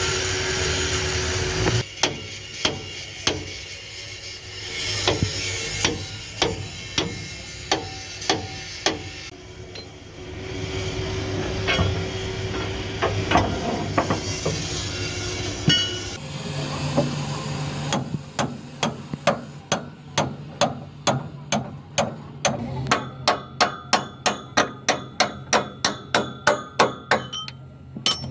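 Hammer blows on the steel leaves of a bus leaf spring: scattered strikes at first, then a steady run of about two ringing blows a second over the last ten seconds. A steady noise with a held tone sounds under the first two seconds.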